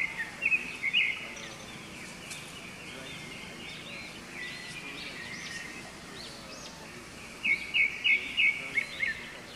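Short, high-pitched chirping animal calls over a steady forest background. There is a burst in the first second and a few rising-and-falling calls mid-way, then a louder quick run of about five chirps near the end.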